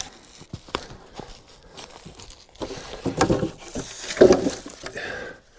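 Footsteps and rustling on the forest floor, with scattered short knocks, busiest about three to four and a half seconds in.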